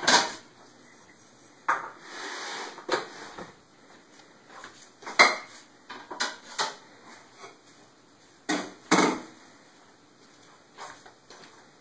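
Dishes and cutlery clattering at a kitchen counter during food prep: a string of separate knocks and clinks at uneven intervals, with a rattling, scraping stretch about two seconds in.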